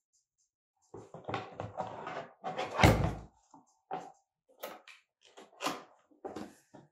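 Cardboard box being opened and handled on a tabletop: a run of knocks, taps and scrapes starting about a second in, the loudest a heavy thump about three seconds in.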